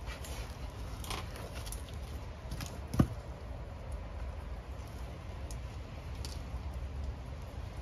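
Low steady rumble with faint scuffs and clicks, and one sharp knock about three seconds in.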